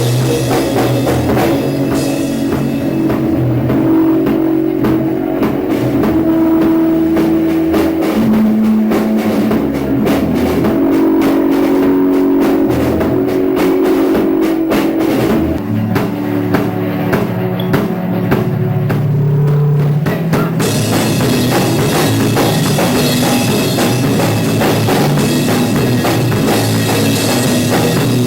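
Loud live rock band playing, drum kit and guitar over a low riff that steps between notes. The cymbals thin out a few seconds in and come crashing back in about twenty seconds in.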